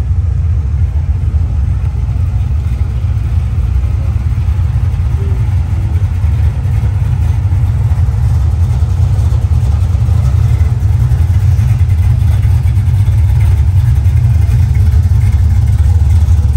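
Classic Holden cars' engines rumbling as they roll slowly past one after another, a deep steady rumble that grows a little louder near the end.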